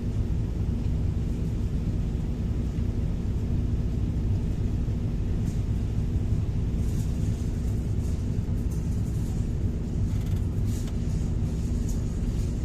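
Heavy diesel engine of a large excavator running steadily under work, with faint clicks and rattles in the second half.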